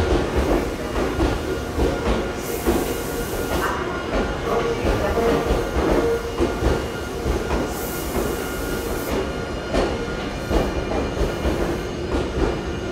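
Tobu 100 series Spacia electric limited express moving slowly through the station: irregular knocking of wheels over rail joints, with a steady whine running under it.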